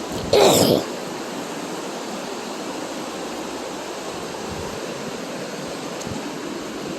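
Swollen, fast-flowing floodwater of a creek rushing against a bridge: a steady, even rush. A brief louder burst about half a second in.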